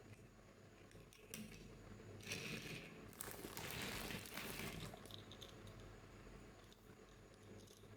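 Plastic toy packaging being handled and opened by hand, a crinkling rustle that is loudest for about two seconds in the middle, with a few small clicks around it.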